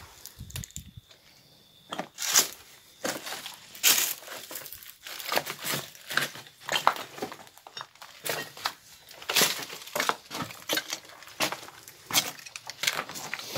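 Irregular crunching and crackling of steps and movement over loose rubble and debris, starting about two seconds in.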